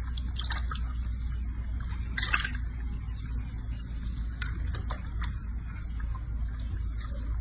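Small splashes and sloshing of bathwater in a washbasin as hands wash a baby monkey, with scattered short clicks and squishes, the strongest about two seconds in. A steady low hum runs underneath.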